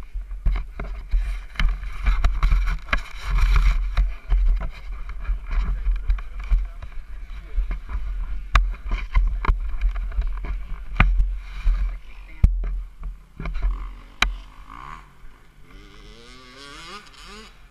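Wind gusting on the helmet camera's microphone as a deep, uneven rumble, with a few sharp clicks and knocks from hands working on the front of the parked dirt bike.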